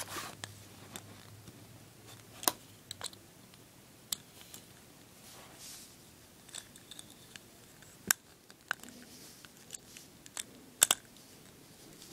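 Small plastic and metal parts clicking and tapping as a flashlight and scope-rail mount are fitted to a Crosman C11 airsoft pistol's rail: faint, irregular clicks about every second, the sharpest a quick double click near the end.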